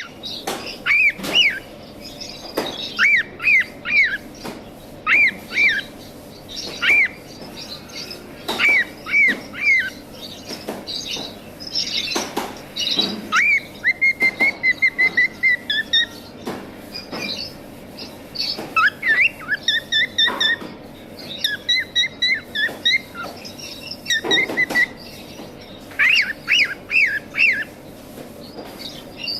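Cockatiels calling: short upswept chirps in groups of two to four, with runs of quicker warbled chirps in the middle and scattered sharp clicks.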